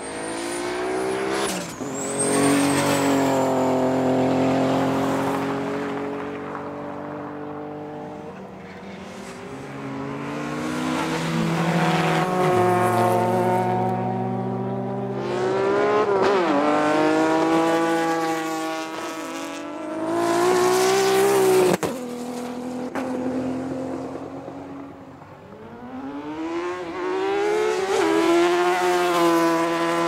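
High-performance drag-race engines running hard at full throttle, one run after another. Each engine climbs steeply in pitch, breaks off and climbs again as it gears up, and the level swells and falls about five times.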